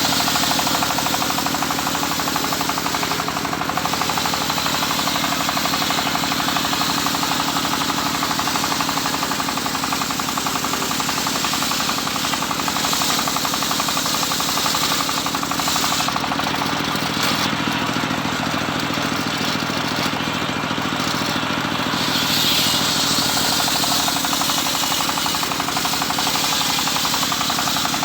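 Homemade circular saw running steadily under power, its blade sawing through teak. The high cutting noise eases off for a few seconds past the middle while the drive keeps running, then picks up again.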